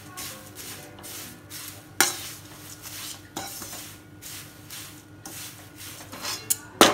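Crisp roasted nylon poha flakes rustling and crackling as they are stirred and tossed with a spatula in a kadhai, in quick repeated strokes that scrape the pan; the dry rustle shows the poha is roasted crisp. A sharp clank of the spatula against the pan comes about two seconds in, and a louder one just before the end.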